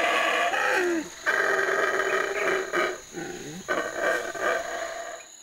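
Howler monkey howling: long, loud roaring calls broken by short pauses about a second in and again around three seconds in, fading near the end.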